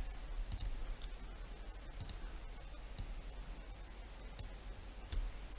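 A handful of faint, spaced clicks of a computer mouse.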